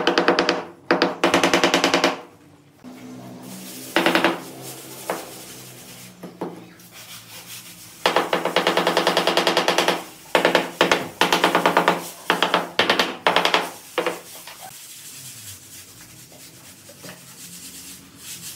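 A hammer rapidly tapping large ceramic floor tiles down into their mortar bed to level them. The knocks come in quick-fire bursts of about a second, with short pauses between.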